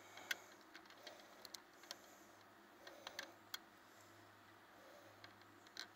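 Near silence: a few faint, scattered light clicks and taps over a low steady hum.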